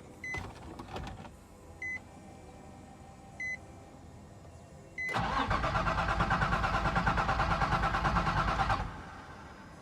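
Four short electronic beeps about a second and a half apart, then the Nissan 350Z's starter cranks its 3.5-litre V6 for nearly four seconds with a steady rhythmic pulse and stops without the engine catching: a crank-no-start, which the owner is tracing to a short in the wiring harness.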